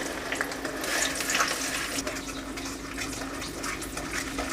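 Ground onion paste sizzling in hot oil in a kadai, a steady frying hiss with small clicks through it.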